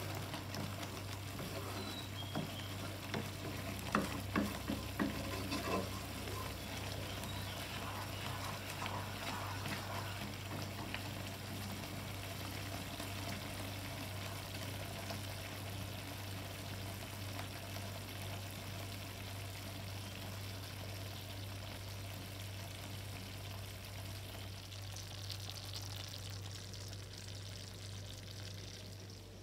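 Thick cheese sauce sizzling and bubbling in a nonstick pan as it is stirred with a wooden spoon. There are a few sharp knocks of the spoon against the pan about four to six seconds in, over a steady low hum.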